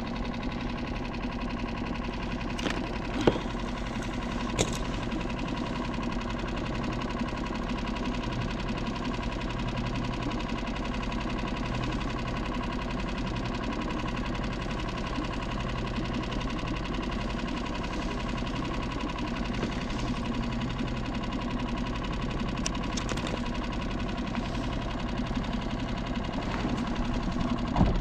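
Boat engine idling steadily, with a few light clicks and taps from hook and line being handled, the sharpest about three and four and a half seconds in.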